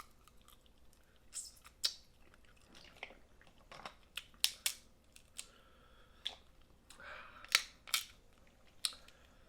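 Snow crab shells clicking and cracking as the legs are broken open and picked, in a dozen or so sharp, irregular snaps, with some chewing between them.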